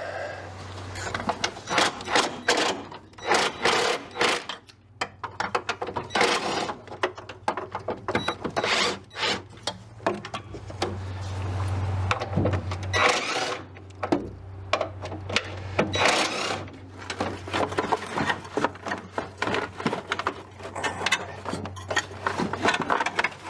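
Hand tools clicking and clattering in irregular runs of sharp ticks and knocks over a steady low hum, as bolts holding a car's coolant overflow tank are worked loose.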